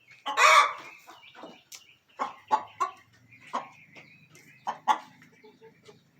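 Hens clucking in short, separate calls, with one louder squawk about half a second in.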